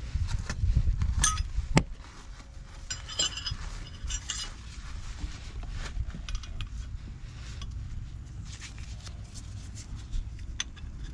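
Two open-end wrenches clinking and tapping on a barbed transmission cooler line fitting as it is tightened into the radiator, a scatter of sharp metal clicks over a steady low rumble.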